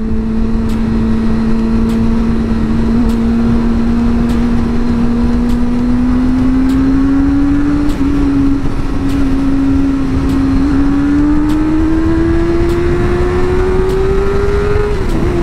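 Suzuki GSX-R600 K4's inline-four engine pulling hard under acceleration. Its pitch climbs slowly, dips briefly about eight seconds in, climbs again and falls near the end, over a steady rush of wind noise.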